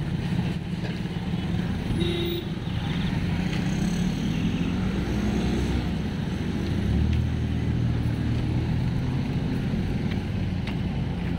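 Road traffic: small motorcycle and car engines running steadily, one engine growing louder about seven seconds in.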